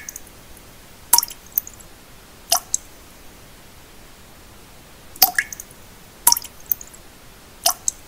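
Water drops falling one at a time into still water, each a sharp drip with a short pitched note, about five in all, several followed by a smaller second drop. Under them runs a steady soft pink-noise hiss.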